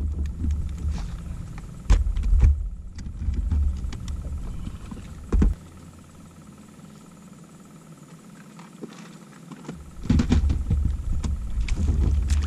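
Wind buffeting the microphone in gusts, with a few sharp knocks, the loudest about five seconds in. The wind drops away for about four seconds, then picks up again.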